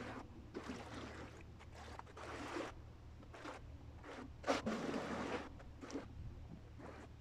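Sea water washing and splashing against the shore rocks in irregular surges, the largest about halfway through, over a low steady rumble.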